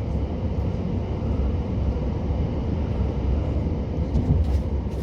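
Passenger train running along the line, heard from inside the carriage: a steady low rumble from the wheels and underframe, with a few faint clicks near the end.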